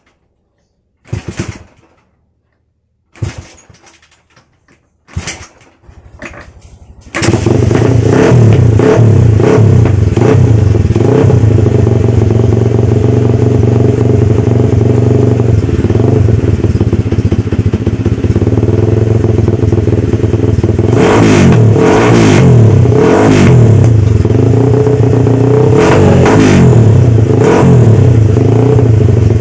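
Tuned Yamaha Vixion 150cc single-cylinder four-stroke engine with a Bintang aftermarket exhaust and a short three-finger baffle. Four brief bursts about two seconds apart come as it is kick-started, and it catches about seven seconds in. It idles loudly, then from about two-thirds of the way through it is revved in repeated quick blips that rise and fall.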